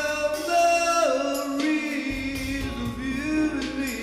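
A man singing a slow ballad into a handheld microphone over an instrumental backing track, in long held notes, one of which slides down in pitch about a second in.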